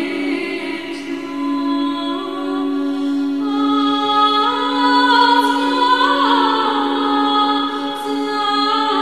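A cappella choir singing an Orthodox church chant: a steady held drone note under a melody that moves in slow steps on long drawn-out syllables.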